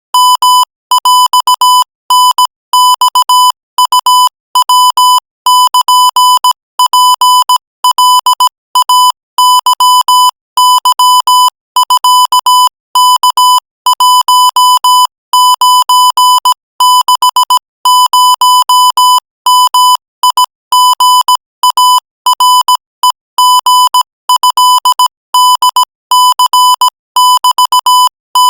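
Morse code sent at 20 words per minute as a beeping tone keyed on and off in short dots and longer dashes, with brief gaps between letters and longer gaps between words.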